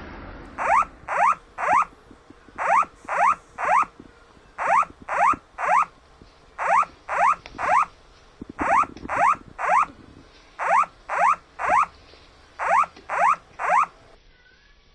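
Japanese Earthquake Early Warning (緊急地震速報) alert tone: sets of three quick rising tones, a set every two seconds, seven sets in all, stopping near the end.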